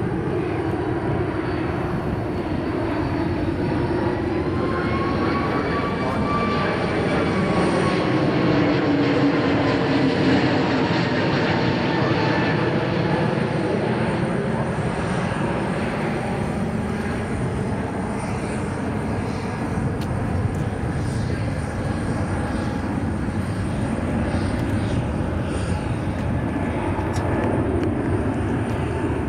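Airbus A321XLR twin-engine jet airliner flying past, its turbofans giving a steady rush of jet noise. A whine rises a few seconds in and then slowly falls, and the sound is loudest about a third of the way through.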